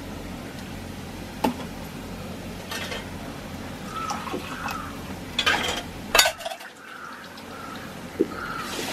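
Steel utensils clinking against a metal cooking pan as ground masala paste is scraped out of a stainless steel mixer-grinder jar: a few sharp clinks and knocks, the loudest about six seconds in.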